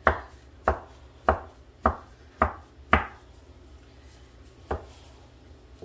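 A knife chopping down through a log of soft dough onto a wooden butcher-block counter, knocking on the wood with each cut. Six regular chops come a little over half a second apart, then a pause and one more chop near the end.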